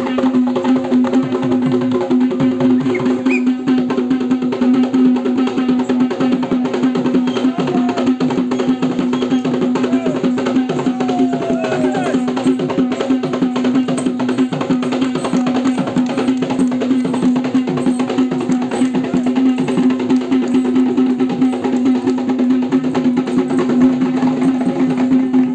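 Geta beraya (Kandyan double-headed drum) drumming in fast, continuous strokes, the dance rhythm for Sri Lankan leaping dance, over a steady held low tone.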